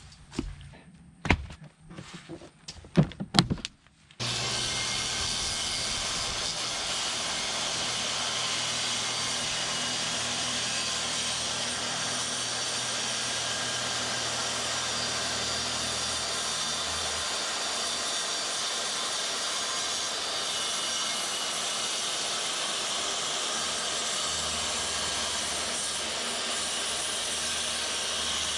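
A few sharp knocks of wooden deck boards being hammered and pried apart, then a loud, steady hissing noise starts abruptly about four seconds in and holds unchanged.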